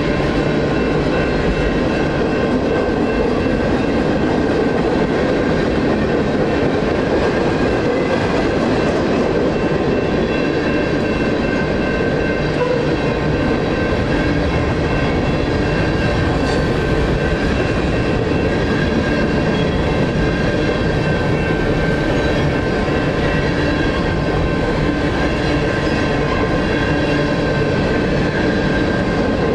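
Freight train of tank cars and covered hoppers rolling steadily through a grade crossing, with the continuous noise of wheels on rail. Over it, the crossing's NEG electronic bells ring without a break.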